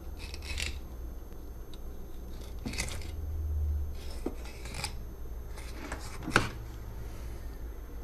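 Filleting knife slicing and scraping along a tuna carcass on a plastic cutting board: a handful of short scrapes, with a sharper knock about six seconds in, over a low steady hum.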